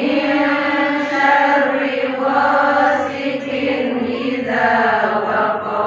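A single voice chanting a long, drawn-out melodic phrase in Qur'an recitation style, its pitch held and then sinking gradually near the end.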